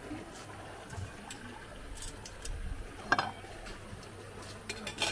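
Quiet background ambience with a steady low hum and a few faint clicks and clinks, the sharpest about three seconds in and a cluster just before the end.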